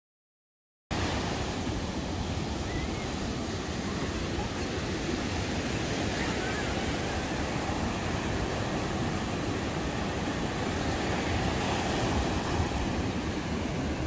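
Pacific Ocean surf breaking and washing up a sandy beach: a steady, even rush of waves that cuts in suddenly about a second in after silence.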